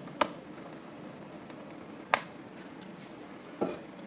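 Three sharp clicks as a Phillips screwdriver and small screws touch a unibody MacBook Pro's aluminium case while the case screws go back in. The last click is duller than the other two. A faint steady hum runs underneath.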